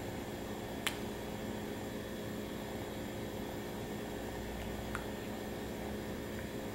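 Steady low hum and hiss of room tone, with two short faint clicks, one about a second in and one about five seconds in.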